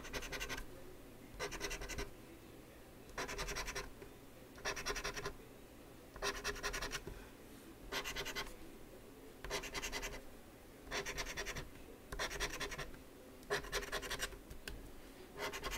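Scratching the coating off the play spots of a paper lottery scratch-off ticket, in about ten short bursts of quick back-and-forth strokes, one every second and a half or so.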